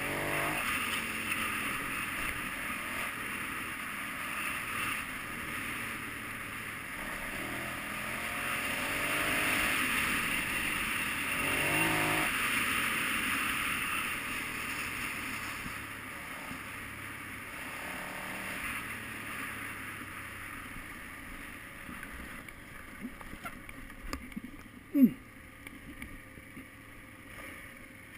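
KTM 990 Adventure's V-twin engine running under way on a dirt track, mixed with wind rushing over the helmet camera. Both grow quieter over the last few seconds. A single sharp knock near the end is the loudest sound.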